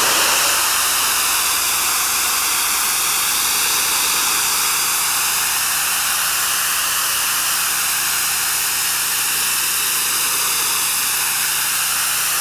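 Pressure washer spraying through a flat fan nozzle onto concrete: a loud, steady hiss of the high-pressure water jet blasting the surface.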